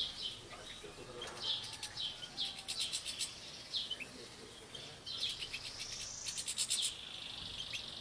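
A flock of European goldfinches twittering: many short, quick chirps, with fast rattling trills about three seconds in and again around six seconds. A steady high tone comes in near the end.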